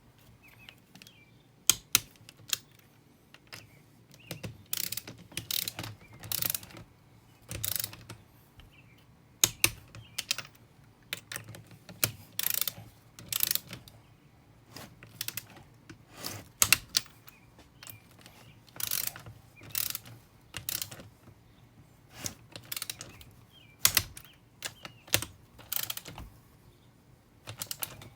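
Torque wrench ratcheting in short runs as cylinder nuts are tightened to 20 ft-lb in a crisscross pattern, with a handful of sharp, louder clicks in between.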